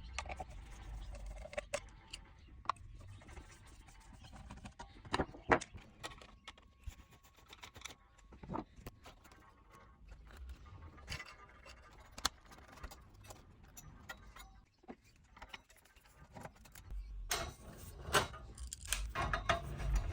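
Scattered clicks, small metallic clinks and handling knocks of tools and screws while an amplifier is being taken apart, over a low rumble.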